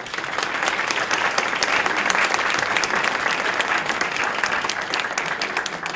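Audience applauding: many hands clapping at once, starting all together and dying away near the end.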